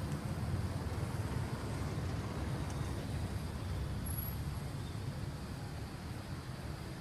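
A steady low rumble of outdoor background noise with no distinct sounds standing out, easing off slightly near the end.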